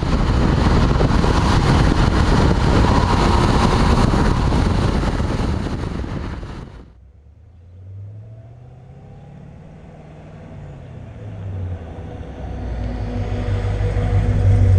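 Car V8 engine on the road. First, a loud rush of engine, road and wind noise that cuts off suddenly about seven seconds in. Then the engine's note rises and falls and rises again, getting louder toward the end, as the car accelerates through the gears.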